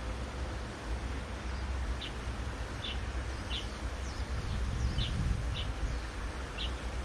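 A bird chirping: about seven short, high chirps spaced half a second to a second apart, starting about two seconds in, over a steady low rumble.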